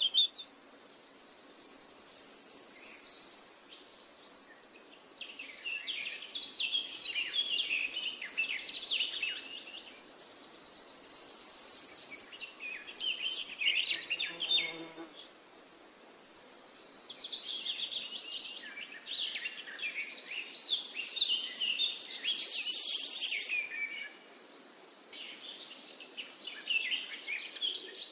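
Birds chirping and singing in busy clusters, with a high, steady insect-like buzz that comes and goes in spells of a few seconds.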